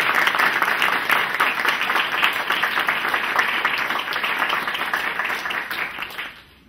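Audience applauding in a lecture hall, dense steady clapping that dies away near the end.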